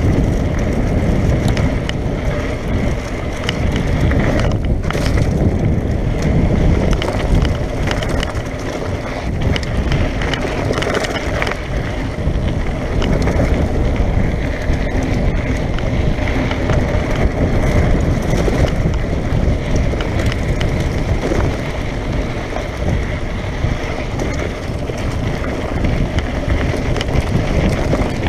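Mountain bike descending fast on a loose dirt and gravel trail: steady tyre crunch and rumble over the stones, with constant small knocks and rattles of the bike over bumps.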